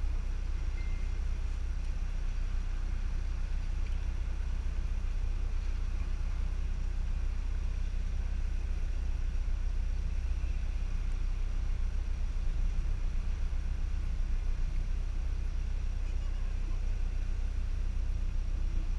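Wind buffeting the camera's microphone, a steady low rumble that flutters in loudness, over faint outdoor noise.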